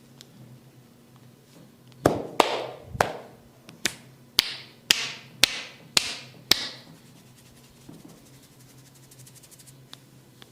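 A run of about nine sharp percussive strikes from a masseur's hands during a head massage, roughly two a second, each trailing off briefly. It stops after about four and a half seconds.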